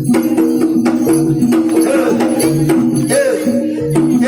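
Javanese jaranan music: a repeating pattern of pitched gong-chime notes over drum strokes, with a low gong-like beat about every second and a bit.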